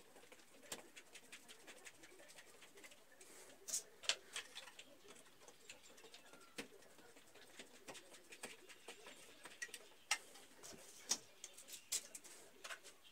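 Scattered faint clicks and light taps of a screwdriver working on a plastic socket base and cable channel on the wall, with a few sharper clicks about four, ten, eleven and twelve seconds in.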